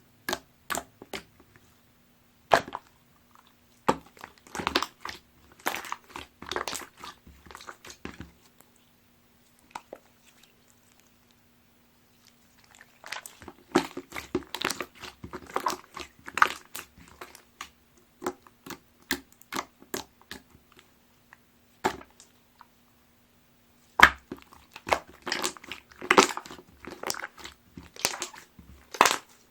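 Watery jiggly slime squished and poked by hand, giving runs of quick wet clicks and pops. There are two pauses of a few seconds, about a third of the way in and again near the end.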